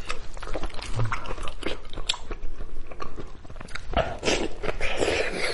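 Close-miked eating: irregular biting and chewing on stewed head meat and gristle, with sharp wet clicks. The chewing gets denser and louder about four seconds in.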